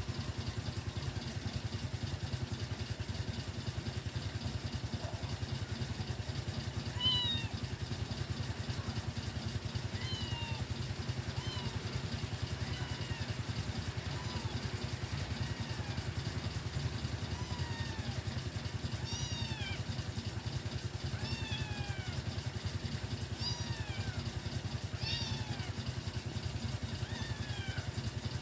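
A kitten mewing again and again: short, high calls that fall in pitch, the first about a quarter of the way in and coming about once a second near the end. A steady low hum runs underneath.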